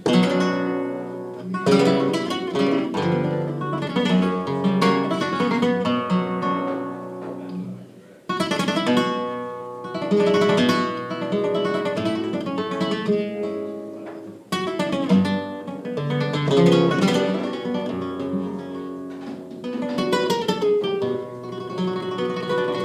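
Solo Spanish flamenco guitar playing the introduction to a farruca, picked runs and strummed chords, with sharp loud chords struck at the outset and again about 2, 8 and 15 seconds in.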